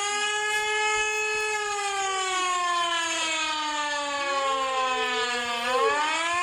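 Austrian civil defence siren wailing: its pitch holds high, slides slowly down over several seconds, then climbs again near the end.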